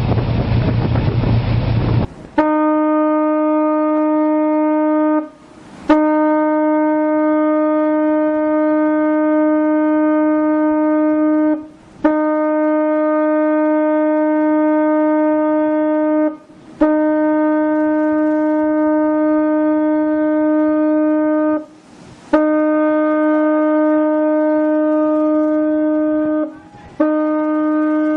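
About two seconds of wind and rushing water, then a vessel's horn sounding one steady low note in six long blasts of three to five seconds each with short breaks between them. It is a warning signal to a fishing trawler bearing straight down on the boat.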